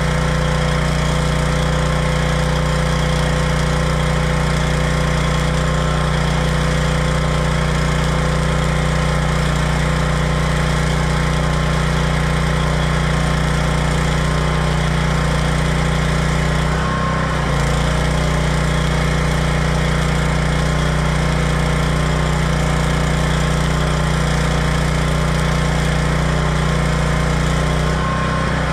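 Stick welding arc from a Hobart Stickmate welder burning a cellulose-coated rod: the harsh, steady crackle and hiss of a 6010-type digging arc over a steady low machine hum. The arc falters briefly about seventeen seconds in, then carries on.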